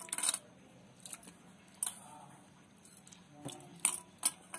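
A hand squeezing and mashing cooked raw-mango stones in a steel bowl of watery pulp: soft wet squelches and splashes, with a few short sharp clicks near the middle and towards the end.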